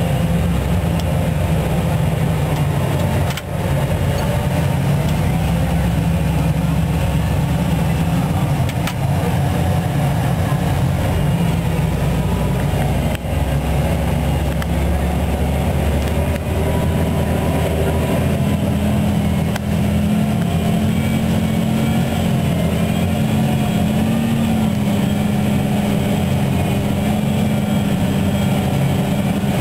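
John Deere 8530 tractor's six-cylinder diesel engine heard from inside the cab, running steadily under load while pulling a five-shank subsoiler. Its note rises slightly a little over halfway through.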